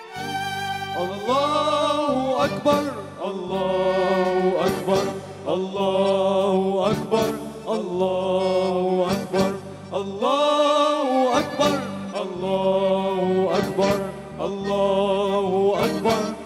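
Young male voices singing an Arabic song into handheld microphones, with long held notes that bend up and down, over instrumental accompaniment with a steady bass line.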